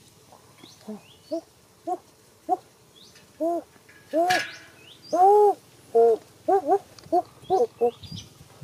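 A run of short, pitched vocal calls, each rising and falling in pitch, about two a second and coming quicker near the end, with faint high bird chirps around them and one brief harsh burst about four seconds in.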